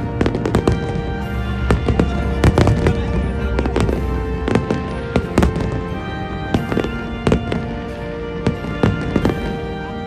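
Aerial fireworks display: shells bursting in quick succession with sharp bangs and crackle, over music with sustained notes.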